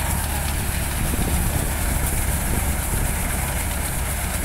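Multi-crop thresher running steadily under load as black gram plants are fed in, a continuous low machine hum with a rushing, rattling noise over it.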